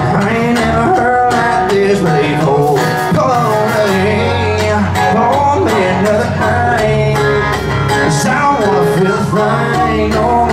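Live country band playing loud through a PA: acoustic and electric guitars, bass and drums, with a harmonica playing a bending melody line over them in an instrumental break.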